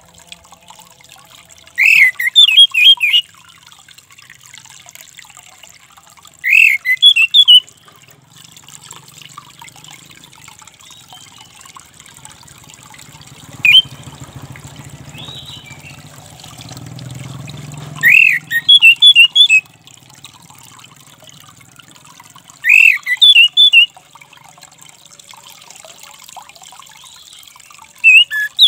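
Orange-headed thrush calling in short, loud phrases, five times about every four to five seconds, plus one brief single note near the middle. Each phrase opens with a falling note and runs into a quick burst of higher notes, over a steady background hiss.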